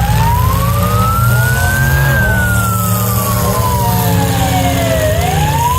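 A siren wailing slowly: it rises for about two seconds, falls for about three, then starts rising again. It is the signal to halt the derby action. Car engines rumble low underneath.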